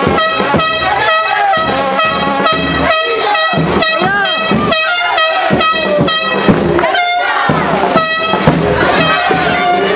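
Loud music with long held horn notes repeating, and voices shouting over it.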